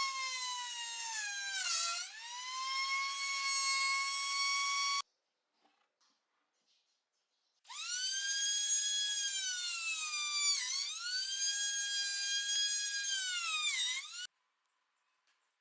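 Small high-speed electric power tool's motor whining at a high pitch. Its pitch sags briefly when it bites into the work, about two seconds in. It cuts off about five seconds in, starts again about three seconds later, sags twice more, and stops shortly before the end.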